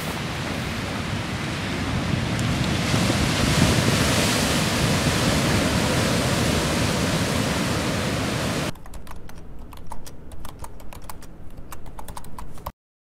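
Wind buffeting the microphone and ocean surf breaking on a rocky lava shore, a loud steady rushing noise that swells about two and a half seconds in. Near the end it gives way to a few seconds of quick, irregular clicks like typing on a keyboard, then cuts off.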